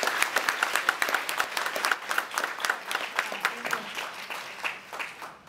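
Audience applauding, many hands clapping, fading away gradually toward the end.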